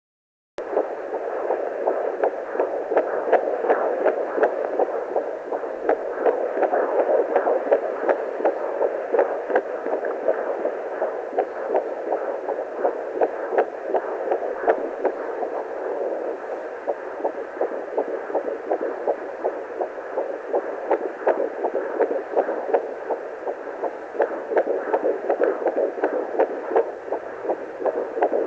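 Fetal heartbeat at 12 weeks of pregnancy picked up by a handheld pocket fetal Doppler: fast, regular whooshing pulses over a steady hiss, starting about half a second in.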